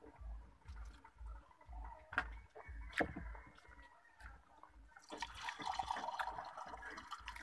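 Close, wet eating mouth sounds: sipping and swallowing, then chewing with a soft, regular rhythm and a few sharp clicks. About five seconds in, a busier, hissy run of wet sounds begins and lasts to the end.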